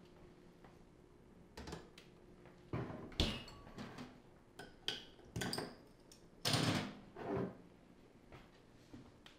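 Kitchen handling sounds of a glass beer bottle being taken from a refrigerator and handled on a counter: a string of knocks and glass clinks, the sharpest about three seconds in, and a longer, noisier sound at about six and a half seconds.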